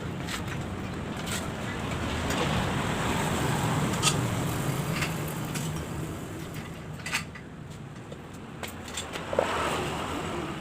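A motor vehicle engine rumbling, swelling through the middle and then fading, with a few sharp clicks and knocks of tools on metal.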